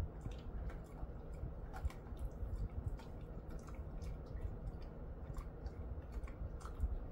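A Jindo-mix dog chewing and licking a small treat: a run of faint, irregular wet clicks and smacks from its mouth.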